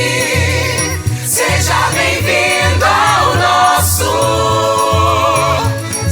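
Musical-theatre cast singing as a choir over band accompaniment: long held notes with vibrato above a steady, repeating bass line.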